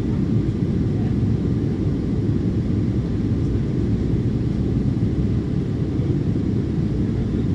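Steady low rumble of cabin noise inside an Embraer 175 airliner in flight, from its underwing turbofan engines and the airflow over the fuselage, heard from a window seat.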